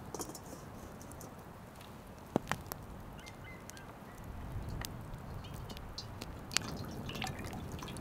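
Wood fire crackling, with scattered sharp pops over a steady low rush. Cooking oil is poured in a thin stream into a steel frying pan set over the fire.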